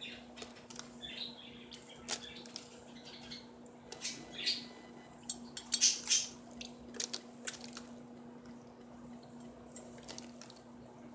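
Quaker parrot splashing in water while bathing: irregular bursts of splashes and drips, busiest about six seconds in.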